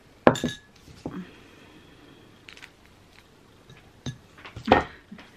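Cutlery knocking and clinking against a plate while an ice cream bar is cut into pieces: a few separate sharp clinks, with the loudest about a third of a second in and near the end.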